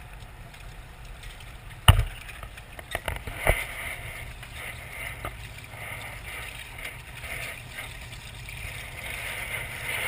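Water from a hose pouring and splashing into a shallow tank over a steady low hum, with a sharp knock about two seconds in and a smaller knock about a second and a half later.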